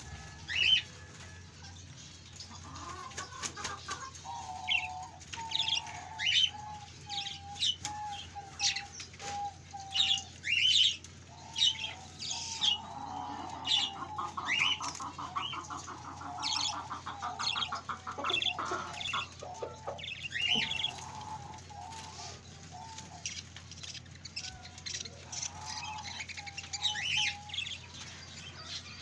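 A rooster beats its wings in a short loud flurry at the start. Small caged birds chirp with many short high notes, over a lower, wavering run of calls and a rapid stuttering call about halfway through.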